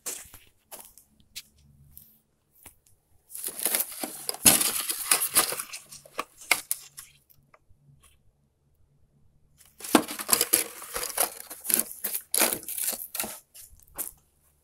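Rustling and clattering of loose items being handled and rummaged through in a utility vehicle's cargo bed, in two bursts a few seconds long with a quiet gap between.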